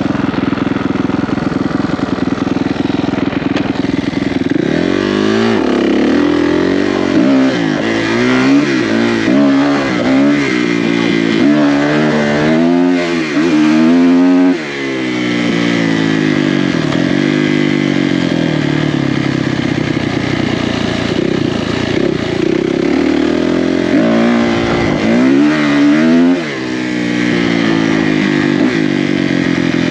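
Four-stroke single-cylinder off-road racing engine ridden hard. It runs at high revs, and its pitch swings up and down again and again as the throttle is worked through a run of turns, then holds steadier, with another quick set of rises and falls later on.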